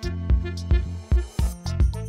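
Background music with a steady beat, a bass thump about twice a second under held instrumental notes.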